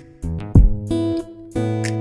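Background music: strummed acoustic guitar chords over a steady beat.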